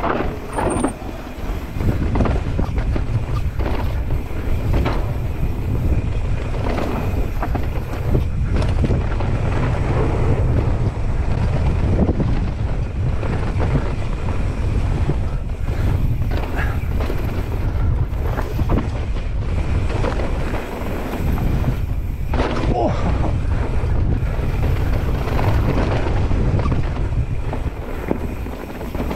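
Mountain bike running fast down a dirt trail: heavy wind rumble on the microphone, tyre noise and frequent clattering knocks from the bike over rough ground.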